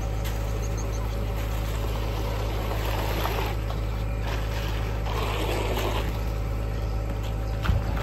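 An engine running steadily with a low drone throughout, over which two swishing scrapes of a straightedge dragged through wet concrete come about three and five seconds in, and a short knock sounds near the end.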